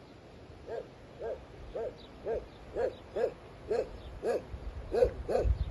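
An animal giving a steady series of short calls, about two a second, each rising and falling in pitch, growing louder toward the end.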